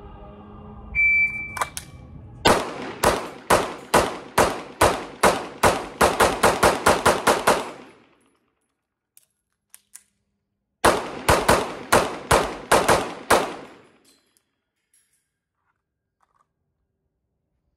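A shot timer beeps once, then a Staccato CS 9mm pistol fires a rapid string of about fifteen shots that quicken toward the end. After a pause of about three seconds for a reload, it fires a second string of about eight shots.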